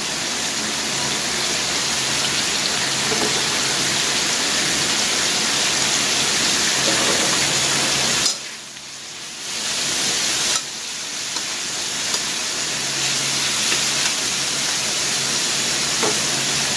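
Vegetables sizzling in a hot wok as they are stir-fried with a metal spatula, a steady hiss that drops away about eight seconds in and returns about two seconds later.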